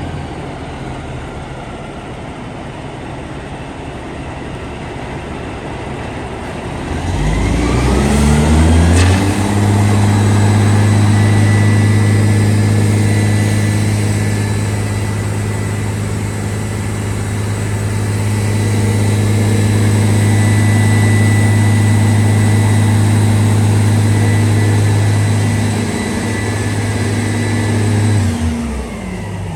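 Oshkosh Striker 3000's Caterpillar C-16 diesel engine running, rising from a low speed to a high, steady speed about eight seconds in, holding there for about twenty seconds with a faint high whine, then dropping back down near the end.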